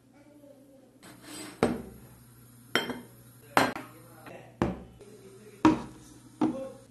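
Plates and cutlery being set down on a table: about six sharp clinks and knocks, roughly one a second, some with a short ring.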